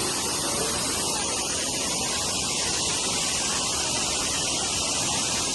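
Rushing water: a steady, unbroken hiss of flowing stream water.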